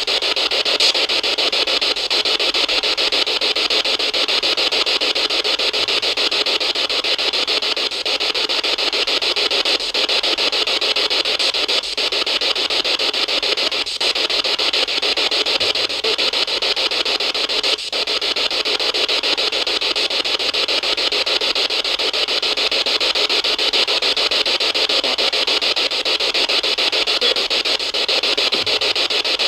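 Steady, loud static hiss with no voice in it, broken by faint brief dropouts every couple of seconds.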